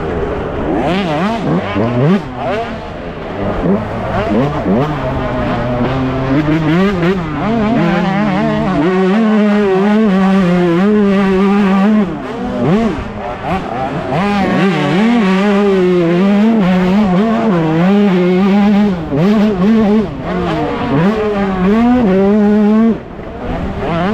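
Yamaha YZ125 two-stroke single-cylinder dirt bike engine revving hard under racing throttle, its pitch rising and falling constantly with throttle and gear changes. The loudness dips briefly twice, about halfway and near the end.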